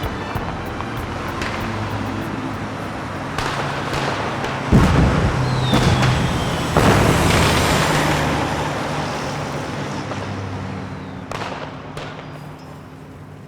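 Explosion sound effects: several heavy booms from about three seconds in, each with a long rumbling tail, and a short falling whistle among them, over a low steady hum. The booms fade away toward the end, with a few lighter cracks.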